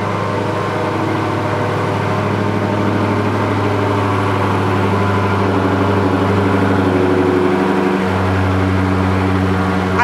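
Dodge Challenger SRT Hellcat's supercharged 6.2-litre V8 idling steadily, just started with a portable jump starter because its weak battery could not crank it. The idle note deepens slightly about eight seconds in.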